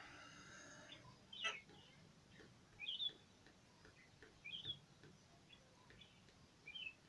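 Faint bird chirping: three short chirps that glide up and down in pitch, a second or two apart, over near-silent room tone. A brief sharp click sounds about a second and a half in.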